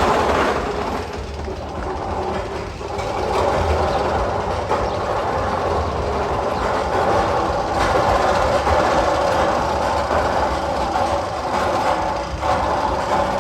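Roller coaster tunnel sound effect from a loudspeaker: a steady, train-like rumble and clatter with sustained tones running through it.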